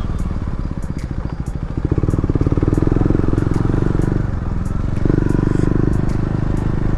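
KTM motorcycle engine running while riding, its sound shifting with the throttle and easing off briefly about four seconds in before picking up again.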